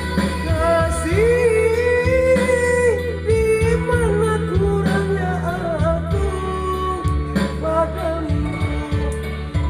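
A woman singing a melody with long held, wavering notes over instrumental accompaniment. Her voice is not at its best because of a cough, as she says herself.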